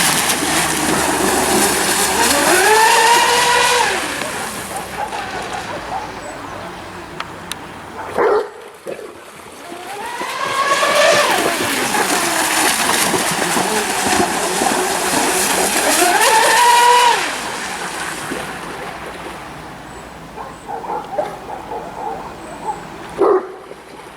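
RC speed boat with twin brushless electric motors making high-speed passes: a high motor whine that rises and falls as the boat goes by, over the hiss of the hull and spray. The first pass fades out about four seconds in and the second runs from about ten to seventeen seconds. A short sharp sound comes twice, near the middle and near the end.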